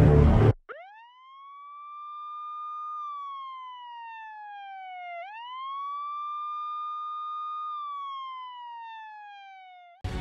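A siren wailing in two slow cycles: each rises quickly, holds a high pitch for a couple of seconds, then slides slowly down, with the second rise coming about halfway through. It cuts off just before the end.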